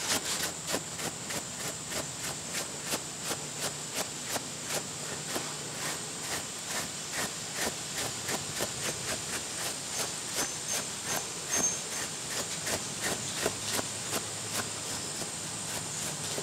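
Kong rubber grooming brush rubbing through a short-haired pit bull–boxer dog's coat in quick, regular strokes, about two to three a second.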